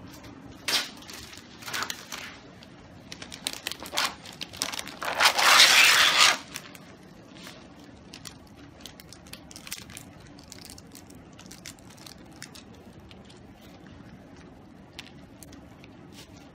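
Plastic packaging crinkling and tearing, with a loud burst of about a second and a half around five seconds in, then faint clicks and taps as plastic tubing and fittings are handled.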